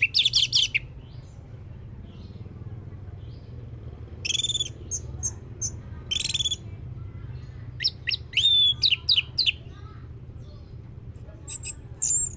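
Orange-headed thrush singing in short bursts of high, quick whistled and trilled phrases, about five phrases with pauses between them, over a low steady hum.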